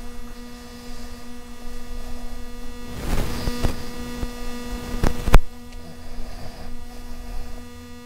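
DJI Mini 3 Pro quadcopter hovering close by while it follows in Active Track, its propellers giving a steady hum. There is a brief rustle about three seconds in and a sharp click a little after five seconds.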